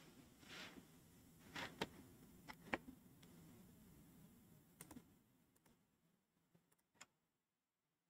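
Near silence with faint, scattered clicks of computer keys, a few close together in the first three seconds, then single ones near five and seven seconds in.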